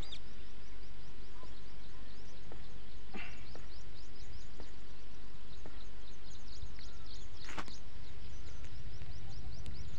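Outdoor ambience: birds chirping in many quick, high calls over a steady low rumble. One brief swish comes about seven and a half seconds in.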